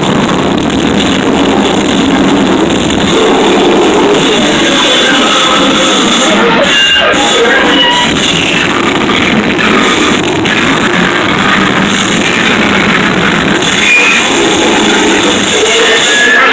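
Live noise-music performance: a loud, dense wall of sound with no steady beat, with a few short high tones rising out of it.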